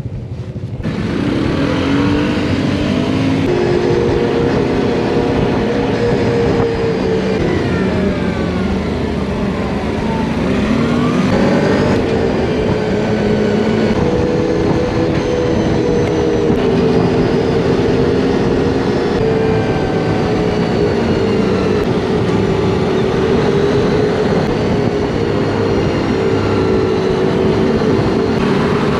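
ATV engine running under the rider as the quad pulls away and is ridden along a road. Its pitch rises as it gets going, drops and climbs again around ten seconds in, then holds at an even cruising speed.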